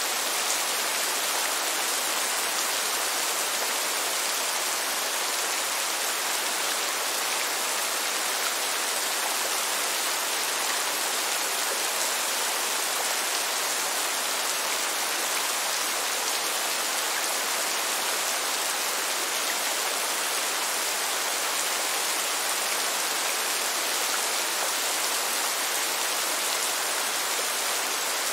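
Steady rain falling: an even, unbroken hiss, strongest in the high range, with no thunder or other distinct sounds.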